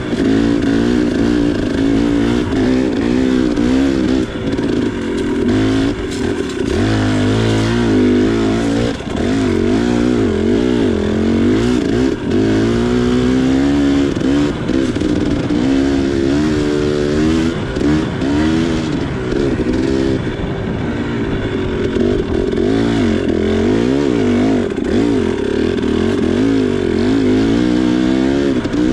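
KTM 300 XC dirt bike's single-cylinder two-stroke engine being ridden off-road, its pitch rising and falling constantly with the throttle. Short knocks and rattles from the bike run through it.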